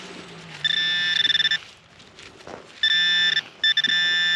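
Handheld metal detecting pinpointer probe giving three steady buzzing alert tones, about a second, half a second and just over a second long, as it is held over a small metal target in the soil.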